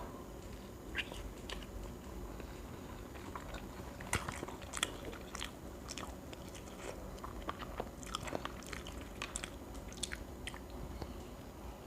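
A person chewing and biting food close to the microphone: quiet, scattered wet clicks and smacks of the mouth.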